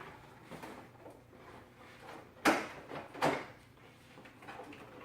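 Parts of an Edge Desk being handled while its workspace tilt is adjusted: light rustling and small clicks, with two sharp knocks a little under a second apart around the middle.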